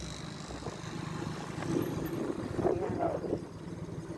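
A vehicle's engine running steadily under way, a low even pulse.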